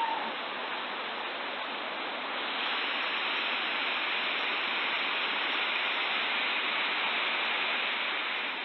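Heavy rain falling steadily, a little louder from about two and a half seconds in.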